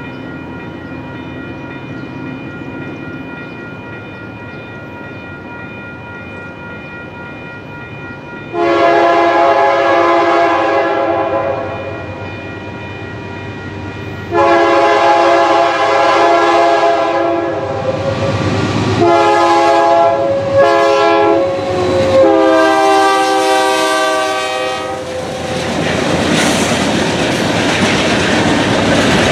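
A locomotive's multi-chime air horn sounds a loud crossing-style sequence: two long blasts, a few short ones, then a final long blast. The train then passes close by with a loud rush of engine and wheel noise.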